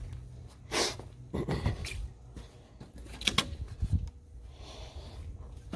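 Handling noise: a few scattered knocks, clicks and rustles, the sharpest about three and a half seconds in, over a low rumble.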